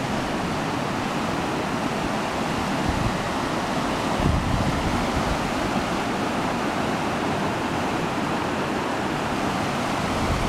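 A river rushing through a rocky gorge: a steady, even roar of water with no break, with a flickering low rumble underneath.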